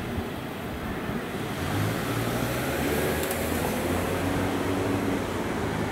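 Container freight train rolling away along the track: a steady rumble of wagon wheels on the rails, a little louder from about two seconds in.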